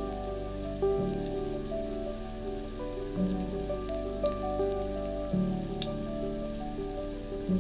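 Fenugreek and mustard seeds sizzling and crackling in hot oil, with a steady hiss and scattered small pops. Background music plays over it, its chords changing about every two seconds.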